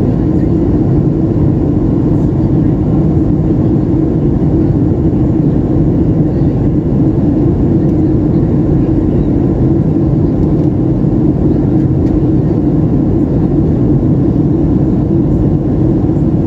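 Cabin noise inside a Boeing 737 in flight: a steady low drone of the engines and rushing air, even throughout.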